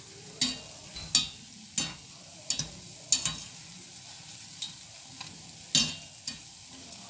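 Luqmat al-qadi (zalabya) dough balls frying in a pan of oil with a faint, steady sizzle, on their first low-heat fry. About ten sharp clicks of a metal spoon against the pan are spread through it.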